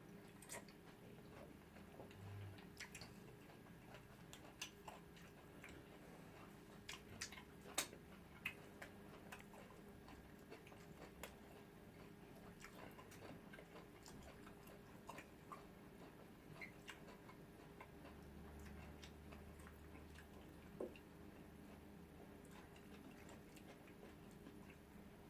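Faint eating sounds: scattered soft clicks and smacks of chewing, with one sharper click about eight seconds in, over a faint steady hum.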